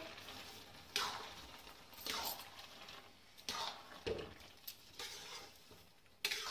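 Steel spatula stirring and scraping grated carrots, milk and freshly added sugar in a large metal kadai, in about six irregular strokes, over a faint sizzle of the cooking halwa.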